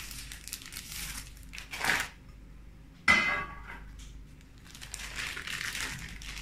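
Handling sounds as a metal springform pan base is lifted off a turned-out cake: a sudden knock of the pan about three seconds in, then baking parchment rustling as it is peeled off the sponge.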